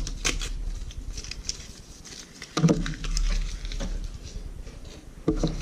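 Paper leaflets and box packaging being handled: rustling with scattered light clicks and knocks, the loudest about two and a half seconds in.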